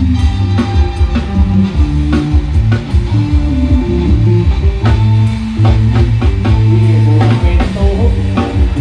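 Loud band music: guitar and a heavy bass line over a drum kit, with steady drum hits.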